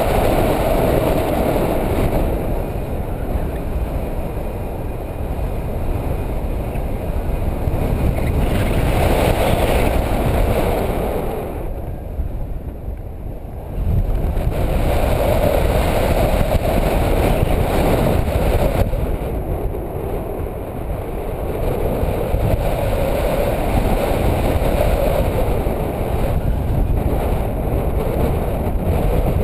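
Airflow of a paraglider in flight rushing over the microphone: steady wind noise with a deep rumble, swelling and easing, that drops away for a couple of seconds around the middle and comes back suddenly.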